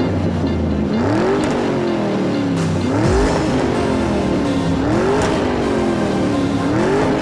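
An engine revving up and down again and again, its pitch climbing and dropping over a steady rushing noise, like a race-car sound effect.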